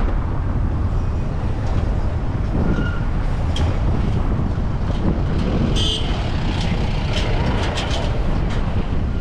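Steady road and engine rumble inside a moving taxi, with a short horn toot about six seconds in.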